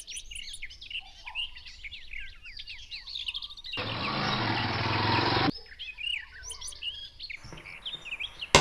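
Many small birds chirping in quick, short calls. About four seconds in, a louder rushing noise cuts in abruptly for a second and a half, with a fainter stretch of it near the end.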